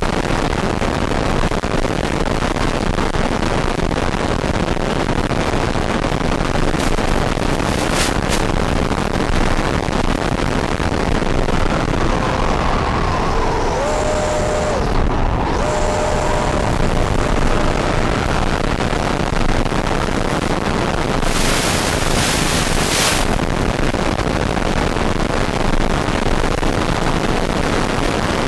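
Steady loud roar of a jet model aircraft in flight, heard from its onboard camera with air rushing past. There are short surges of hiss about eight seconds in and again near the end, and a faint whine changing pitch near the middle.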